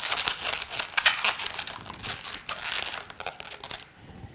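Latex twisting balloons rubbing against each other as a black wheel balloon's tail is wrapped into the pinch twists of a gray strap balloon: a dense run of short scratchy rubs that stops near the end.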